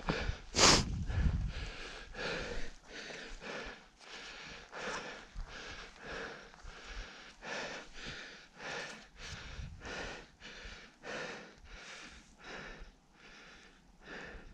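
A runner's heavy mouth breathing, in and out in a steady rhythm of about two breaths a second while running, which he puts down to a broken nose. A brief loud rush of noise comes about half a second in.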